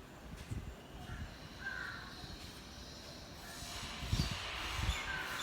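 Small birds chirping in short falling notes, growing busier in the second half, with two dull low thuds about four and five seconds in.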